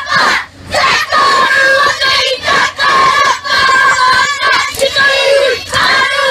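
A group of children chanting loudly in unison, phrase after phrase with short breaks between.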